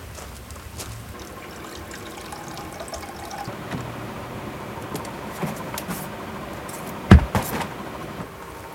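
Rummaging in a hard-sided camping cooler as its lid is lifted and a box is taken out, with a few light knocks. There is one loud thump about seven seconds in, followed by a couple of smaller ones.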